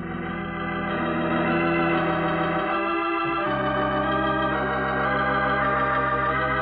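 Organ music: sustained held chords that swell in and change to a new chord about three seconds in.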